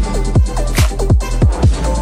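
Background electronic music with a steady, fast beat of deep kick drums and short melodic notes.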